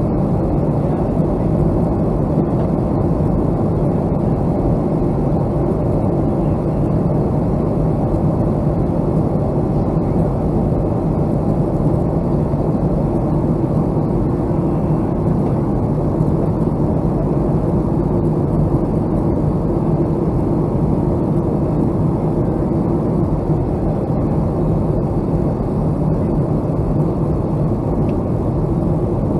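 Boeing 757-200 jet airliner producing a steady, unbroken low rumble of engine and airflow noise, with a faint steady hum under it.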